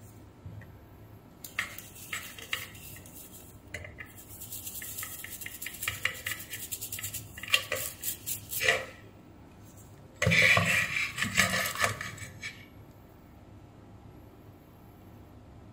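A brush scrubbing a printed circuit board, a fast scratchy rustle of many quick strokes, with light clicks and clinks of metal tools on the board. About ten seconds in comes a louder stretch of scraping and clinking.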